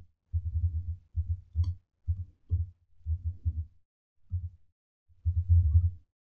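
Keyboard typing heard as muffled low thumps, in short bursts of rapid keystrokes separated by brief pauses, with one sharper key click about a second and a half in.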